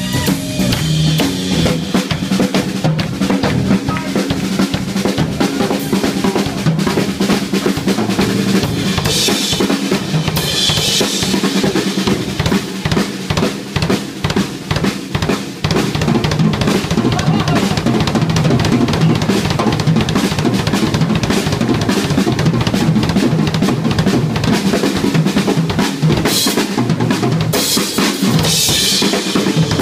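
Drum kit solo: rapid strokes on snare, toms and bass drum, with cymbal crashes about ten seconds in and again near the end.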